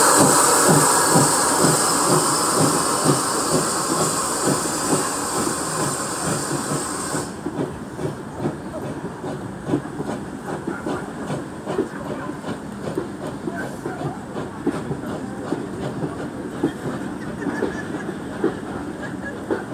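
Steam train pulling slowly out behind a GWR pannier tank engine: loud steam hissing that cuts off suddenly about seven seconds in, then the carriage wheels clicking and knocking over the rail joints as the coaches roll past.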